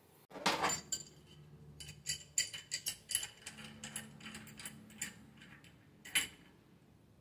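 TOTAL steel adjustable wrench clinking against a brass fitting and the bench vise as it is set on the fitting and its jaw adjusted. A brief handling rustle comes first, then a run of small metallic clicks, with one louder clink about six seconds in.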